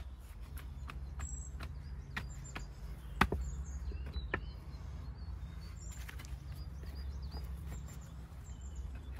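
Stones clicking and knocking against each other as small pieces are packed into a dry stone wall by gloved hand, with one sharp knock about three seconds in the loudest. Birds chirp over a low steady rumble.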